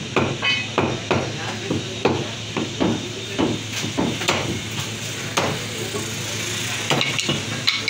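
Cleavers chopping goat meat on wooden butcher's blocks: irregular heavy chops about three a second for the first four or five seconds, then only a few spaced strikes.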